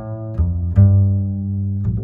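Bass-heavy music played loud through a sound system's amplifier and speakers: sustained deep notes with sharp plucked attacks, three new notes struck within two seconds.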